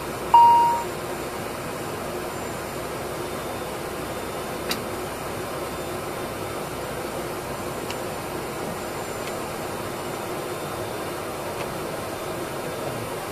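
Steady hum of an ATR 72-600's cockpit and aircraft noise, with a single loud chime about a third of a second in that dies away within half a second, and a faint click near the five-second mark.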